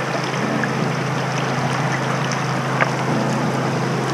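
Jet boat engine running at speed with a steady low hum, over the rush of water and wind as the boat travels up a shallow river riffle.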